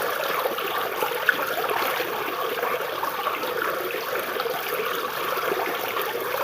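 Stream water flowing and trickling over and under tree roots, a steady babbling, with one brief tick about a second in.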